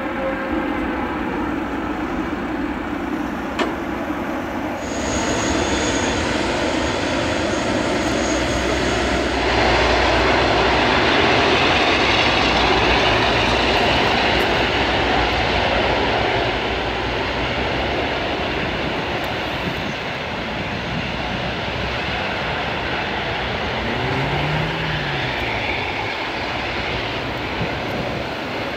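Jet engine noise from an Airbus A380's four Rolls-Royce Trent 900 turbofans as the airliner passes: a steady sound that builds about five seconds in, is loudest a few seconds later, then slowly eases.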